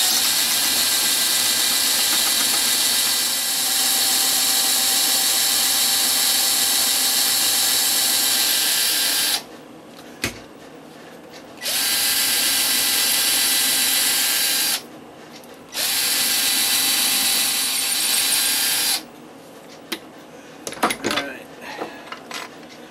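Handheld high-speed rotary tool drilling into a concrete statue's leg with a 1/8-inch concrete drill bit: a steady high-pitched whine. It stops about nine seconds in, starts again about two seconds later, pauses for about a second, runs again and stops for good near the end, followed by a few light clicks and handling noises.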